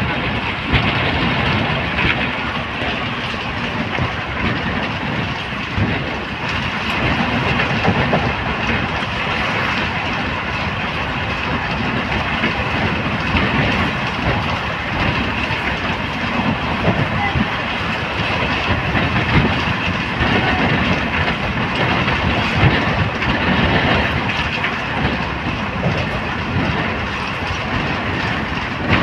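Train running at speed, heard from inside the coach: a steady rumble with continuous clatter of the wheels on the rails.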